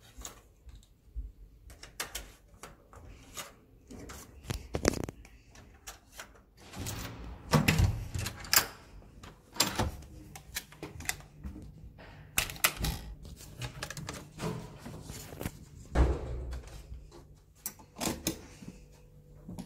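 Irregular knocks, clicks and thuds of objects being handled and set down, busiest in the middle, with one heavier knock late on. A faint low steady hum sits underneath from about halfway.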